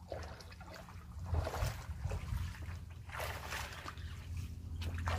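Shallow lake water sloshing and splashing in irregular bursts as a person wades out of the shallows onto the bank.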